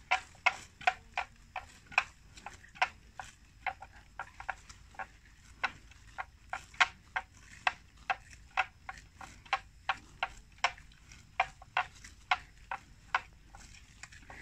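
Water buffalo grazing, tearing and cropping wet grass in quick, sharp rips at an uneven pace of about two or three a second.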